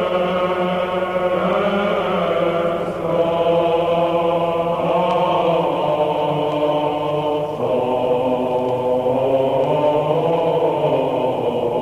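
A choir chanting slowly in long held notes, the pitch moving to a new note every few seconds.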